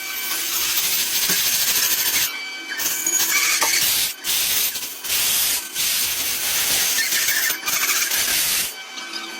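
Pressurised spray hissing in about six bursts of one to two seconds each, with short breaks between them.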